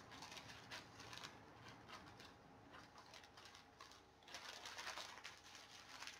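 Faint rustling and handling noises, denser and a little louder from about four seconds in.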